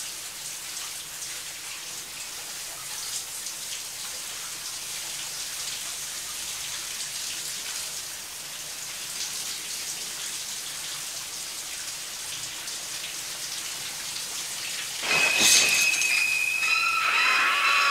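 Shower spray hissing steadily on a shower curtain. About fifteen seconds in, the curtain is yanked open and piercing, screeching high violin stabs of the film score come in, holding and sliding in pitch.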